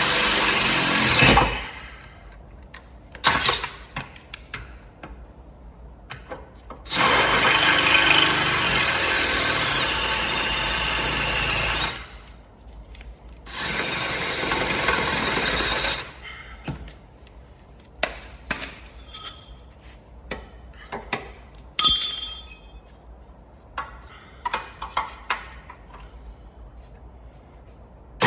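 Cordless drill boring through the car's steel front-panel seam to drill out the spot welds. It runs in several bursts, the longest about five seconds, with pauses between. After that come only scattered clicks and taps.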